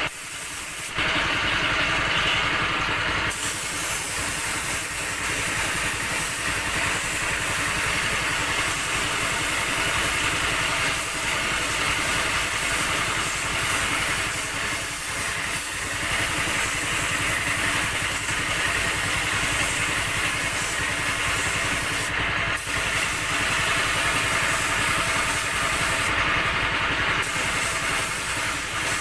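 Compressed-air spray painting: an air compressor running steadily with a continuous hiss of air, starting about a second in.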